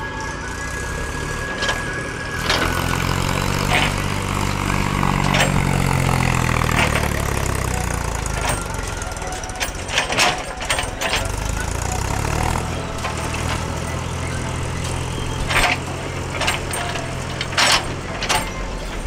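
Diesel engines of a JCB backhoe loader and a farm tractor running; the tractor engine runs steadily under load as it tows a trailer full of soil. Several sharp knocks and rattles cut through, the loudest near the end.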